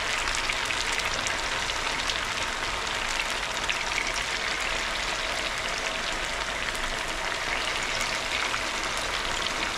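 Batter-coated potato pieces deep-frying in hot oil: a steady sizzle full of small crackles and pops.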